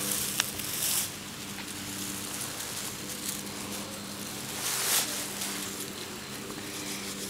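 Grass rustling and brushing as a hamster runs through it close to the microphone, with two louder rustles, one within the first second and one about five seconds in, over a steady low hum.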